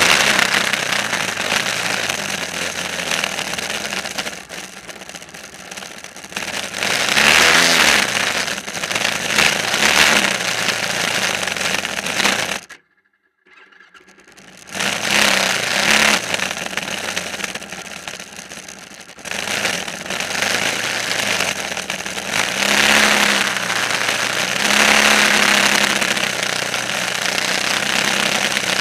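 An engine running and revving up and down several times over a loud hiss. Everything cuts out for about a second near the middle.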